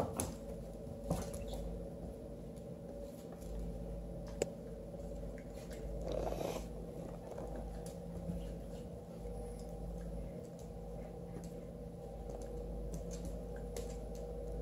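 Pocket beagle and kitten play-wrestling on a hardwood floor: scattered light clicks and scuffles of paws and claws, over a steady low background hum, with a brief louder rushing scuffle about six seconds in.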